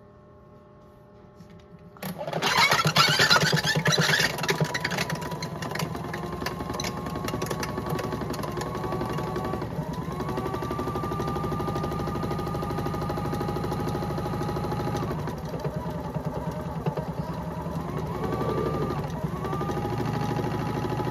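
Modified Miele toy washing machine starting up about two seconds in: its small electric motor kicks in with a burst of water sloshing in the drum, then the drum speeds into a spin with a steady motor whine that steps up in pitch around halfway and again near the end.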